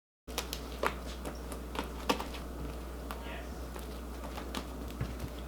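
Slime being kneaded and squished by hand: irregular sharp clicks and pops over a steady low hum.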